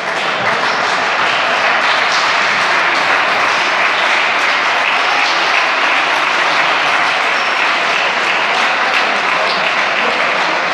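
Crowd of spectators applauding steadily in a gym.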